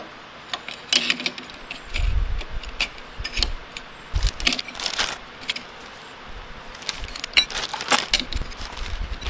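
Oiled fiber and steel clutch plates being slid onto a motorcycle clutch basket and hub: irregular light metallic clicks and clinks as each plate's tabs catch and seat, with a few dull low knocks.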